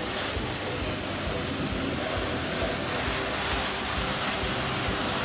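Electric high-pressure washer running, its lance spraying a steady hissing jet of water onto a foam-covered motor scooter.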